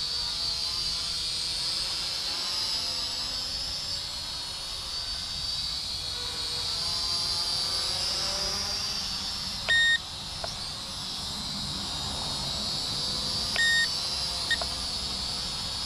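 Kaptur GPS II quadcopter drone hovering, its propellers giving a steady high whine that wavers slightly in pitch as the drone sways. Two short electronic beeps sound in the second half, about four seconds apart.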